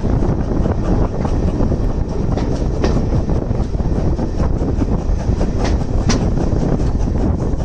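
Railway carriage running along the track, heard from on board: a steady low rumble with scattered sharp clicks from the wheels on the rails.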